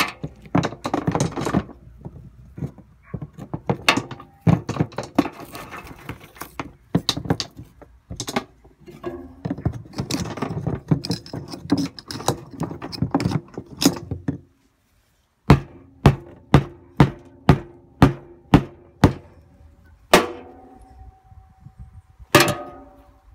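Rocks clattering and thunking as they are dropped onto a stripped riding mower's metal frame. After a short break there is a quick run of about nine evenly spaced knocks, then two ringing metal clanks near the end.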